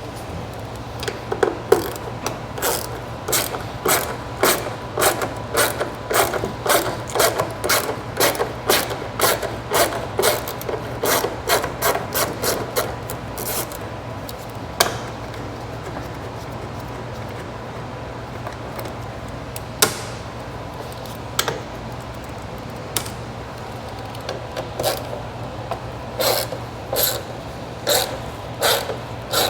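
Hand ratchet wrench clicking in repeated back-and-forth strokes, about two a second, pausing in the middle and starting again near the end.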